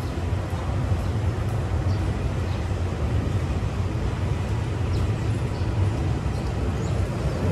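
Passenger train running, a steady low rumble with no distinct knocks or changes.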